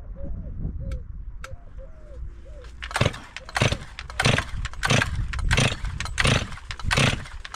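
Stihl MS 362 chainsaw being pull-started: from about three seconds in, seven quick pulls of the recoil starter rope, about three every two seconds, with the engine not yet catching. The saw is brand new and has never had petrol in it, so the pulls are drawing fuel in.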